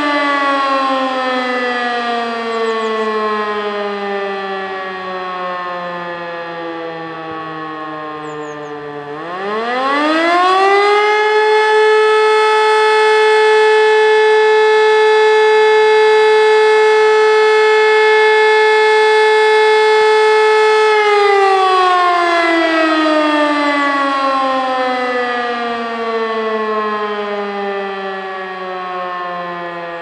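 E57 electric motor siren sounding the German fire-alarm signal. Its pitch falls as it winds down, then about nine seconds in it spins back up quickly to a steady tone held for about ten seconds. After that it winds down again with falling pitch.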